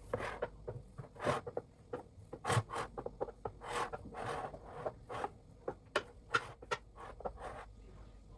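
A quick, irregular run of short scraping or rubbing strokes, some sharper than others, that stops shortly before the end.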